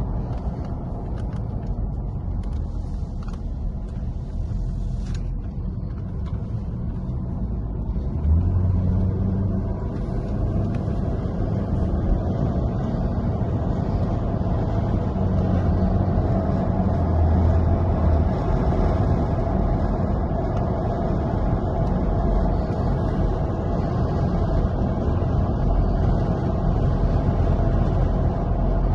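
Car driving at speed, engine and tyre rumble with road noise, growing louder about eight seconds in as the car picks up speed.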